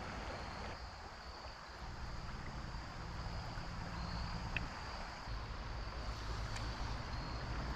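Steady rush of creek water with a low rumble of wind on the microphone that swells and eases, and a faint, steady, high-pitched drone of insects.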